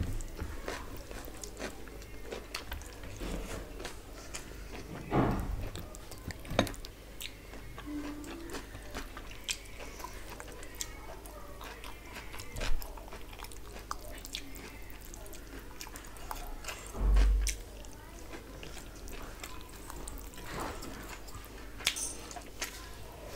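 Close-up mukbang eating sounds: wet chewing and small mouth clicks while rice and curry are eaten by hand, with fingers squishing rice on a steel plate. A few louder low knocks are heard, the loudest about two-thirds of the way through.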